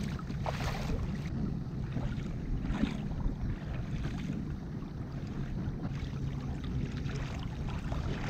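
Water against the hull of a Hobie Outback pedal kayak under way on calm water: soft, scattered ripples and splashes over a steady low rumble.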